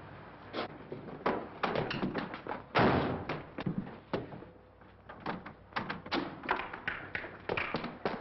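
Irregular knocks and thumps on a car's door and window, with one loud bang about three seconds in.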